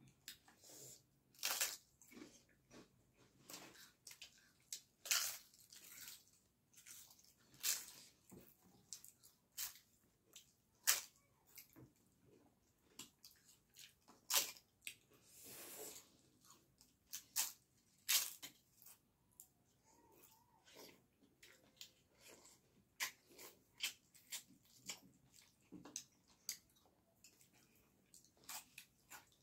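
Close-up eating sounds: irregular crunching as crisp papad is bitten, with wet chewing and lip smacks of eating dhido and chicken curry by hand.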